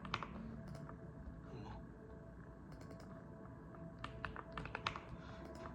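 Mechanical keyboard keystrokes, typed in irregular short bursts with a denser run of keys near the end, over quiet background music.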